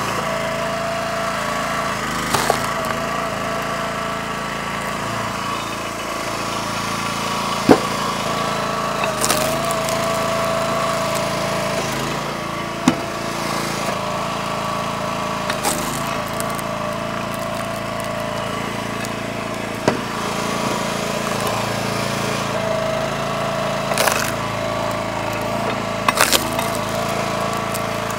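Small gas engine of a Split-Fire 3490 two-way hydraulic log splitter running steadily, with a higher tone that shifts in pitch now and then. Sharp knocks and cracks of wood come every few seconds.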